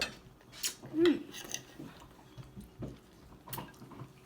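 Fork or cutlery lightly clinking against a plate while someone eats, a few scattered clicks, with a brief low voiced sound about a second in.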